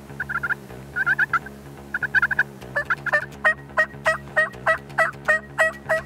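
Turkey yelping. The first half holds short, quick note clusters; from about halfway comes a steady run of about ten yelps, roughly three a second, each note breaking from high to low.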